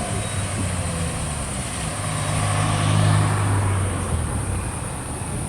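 A motor vehicle's engine passing by, its low steady drone growing louder to a peak about three seconds in, then fading away.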